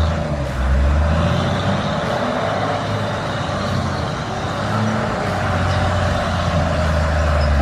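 A heavy log-hauling vehicle's engine running under load through mud, a steady low rumble whose pitch rises and falls.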